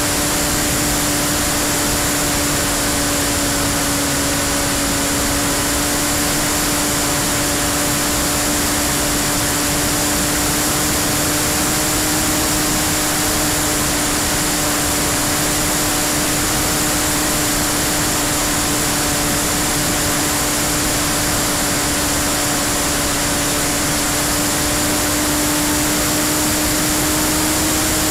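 Electric RC model P-51D Mustang in flight, heard from an onboard camera: the brushless motor and propeller hold a steady whine over rushing air noise.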